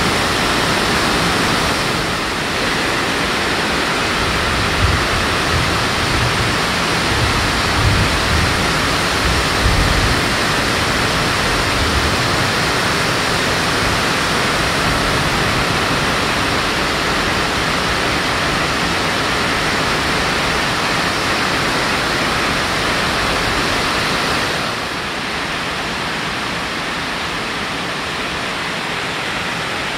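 Rain pattering steadily on a tarp shelter, a dense, even hiss. A few low rumbles come between about 5 and 12 seconds in, and the rain sound drops a little about 25 seconds in.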